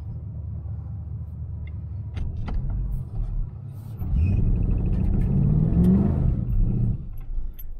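Chevy 350 small-block V8 with a four-barrel Rochester Quadrajet-type carburetor running under way, heard from inside the car. About four seconds in it accelerates hard, the engine note climbing for a couple of seconds before easing off near seven seconds.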